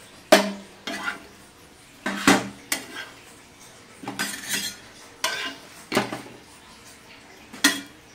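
Steel tongs clanking against a flat iron griddle and a steel plate as toasted sandwiches are lifted off and set down: a series of sharp metal clanks at irregular intervals, some with a short ring.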